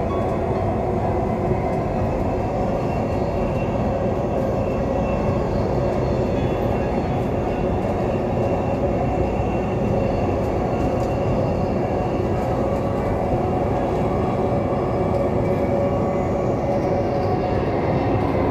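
Dubai Metro train running steadily at speed, heard from inside the front car: an even rumble of wheels on the rails with a few steady tones over it.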